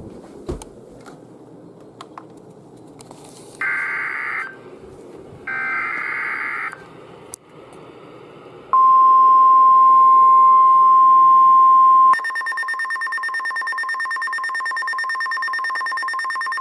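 NOAA Weather Radio alert tones: two short bursts of screeching SAME data-header tones, then the steady 1050 Hz warning alarm tone, then a weather radio's harsh pulsing alarm beep. Together they signal an incoming urgent weather warning.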